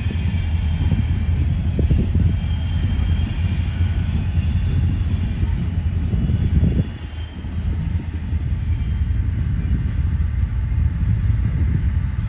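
Freight train rolling past: a steady, loud low rumble of railcar wheels on the rails, with thin high-pitched tones above it and a brief dip in loudness about seven seconds in.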